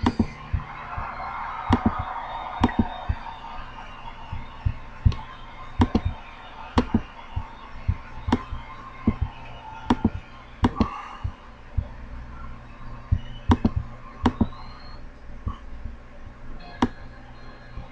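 Sharp, short clicks and knocks at irregular intervals, about one or two a second, over a low steady hum.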